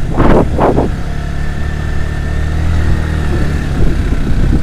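Motorcycle engine running steadily at low revs while riding, with two short loud bursts just after the start.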